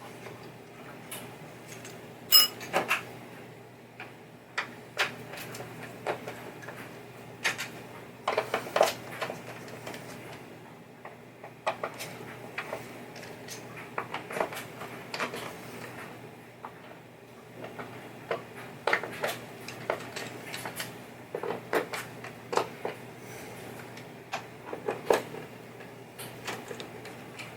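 Small metal parts and hand tools clicking and clinking as pinball playfield parts are taken off by hand, in irregular light knocks, a few louder than the rest, over a steady low hum.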